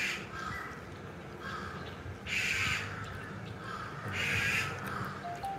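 A crow cawing: three loud, harsh caws about two seconds apart, with fainter calls between them. Near the end a simple tune of stepped notes begins.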